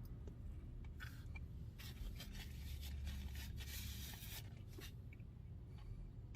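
Faint scraping and rustling of a spoon working through ice cream and slush in a drink cup, with a few soft clicks, over a low steady hum.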